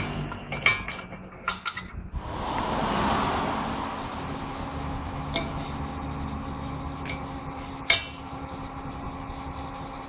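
Metal tool clinks at a car's front steering knuckle during a wheel bearing replacement: a quick cluster of sharp clicks in the first two seconds as the bearing press tool comes off, then single clicks about five, seven and eight seconds in as pliers work in the bearing bore, the one near eight seconds the loudest. A steady hum runs underneath from about two seconds on.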